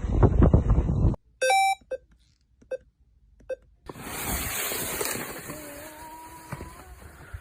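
A short electronic beep followed by a few brief pips, then a steady rushing noise with faint held tones.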